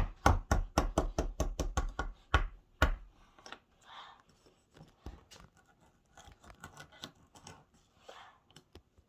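A small digging tool striking a plaster dig-kit block in a fast run of knocks, about five a second, for the first three seconds, chipping away toward the buried gold bar. After that come softer scraping and scratching sounds as the tool digs at the crumbling plaster.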